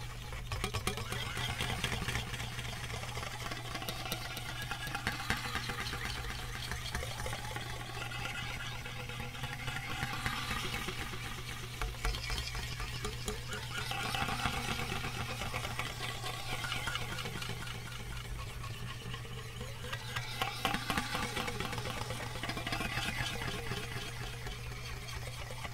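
Aluminium foil being crinkled and rubbed against a microphone grille at close range: a continuous dense crackle that swells and eases as the fingers work the foil.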